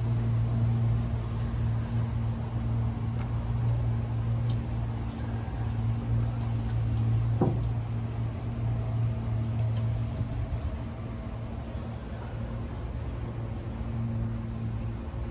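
A passing boat's engine makes a steady low hum that eases off about two-thirds of the way through and comes back near the end. A single brief knock sounds about halfway through.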